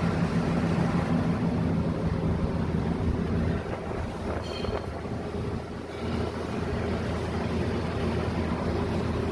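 Toyota Camry engine running steadily with a low hum; the hum eases a little before the middle and comes back about two-thirds of the way in.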